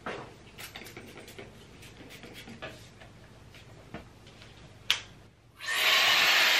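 Shark air-wrap hair dryer being handled with soft clicks and one sharp click near five seconds, then switched on about five and a half seconds in and blowing air in a loud, steady rush.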